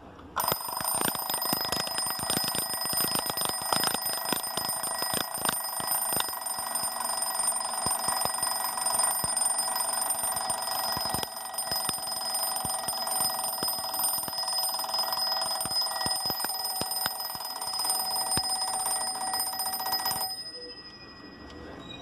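Eurora mechanical wind-up twin-bell alarm clock ringing: the hammer rattles rapidly between its two metal bells in a steady ring. It starts suddenly about half a second in and stops about twenty seconds in.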